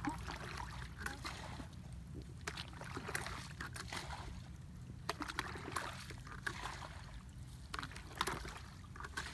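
Muddy water splashing and sloshing as a plastic bucket is dipped into a shallow puddle and emptied, bailing it out, in irregular splashes. A steady low rumble runs underneath.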